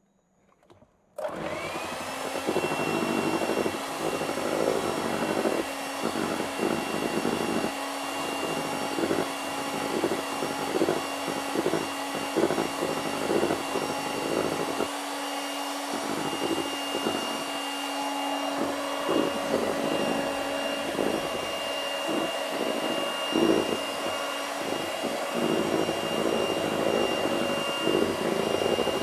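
Handheld electric mixer switched on about a second in, then running steadily with a constant hum and a high whine while whipping meringue (egg whites, sugar and cream of tartar) toward soft peaks. The beaters clatter irregularly against the bowl.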